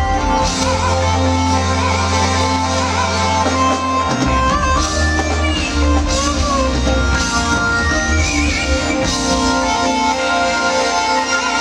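Live band music: a keytar lead plays bending, guitar-like notes over a deep held bass line that shifts to a choppier pattern about four seconds in.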